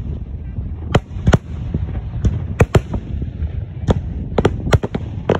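Fireworks display: a rapid, irregular run of sharp bangs, about ten in five seconds, over a steady low rumble.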